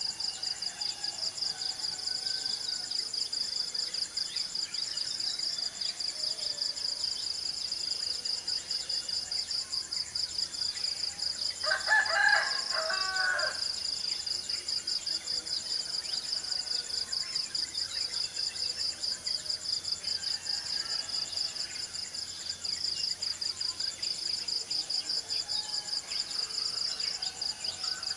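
A rooster crows once, about twelve seconds in, a single call lasting about a second and a half. Steady, rapidly pulsing high-pitched insect chirring runs underneath, with a few faint bird chirps.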